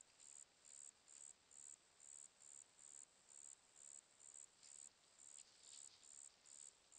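Faint, high-pitched insect chirping in a steady even rhythm, about three chirps a second.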